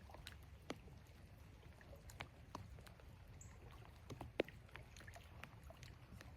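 Scattered raindrops tapping irregularly on a surface close to the microphone, one sharper tap about four and a half seconds in, over a faint low rumble.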